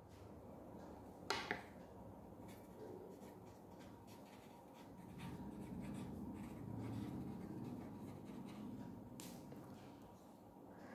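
Pen writing on paper on a clipboard: faint scratching strokes for several seconds in the second half. A single click comes about a second in.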